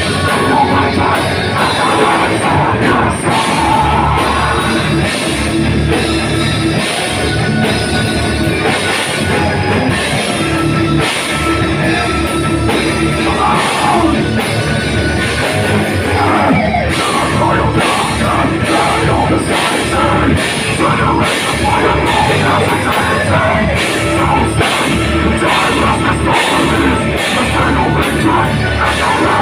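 Live heavy metal band playing loudly: distorted electric guitars, bass and a pounding drum kit, with a vocalist yelling into the microphone.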